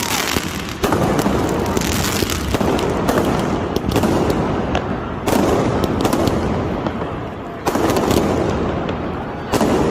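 Aerial fireworks going off in quick succession: sharp bangs every second or two, each followed by dense crackling.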